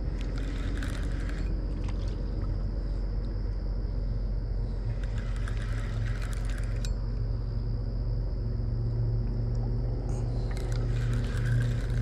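Spinning reel cranked in three short spells, its clicking and rattling heard as a fish is reeled in. Under it runs a steady low rumble like a boat engine, which grows a little stronger near the end, along with a steady high insect drone.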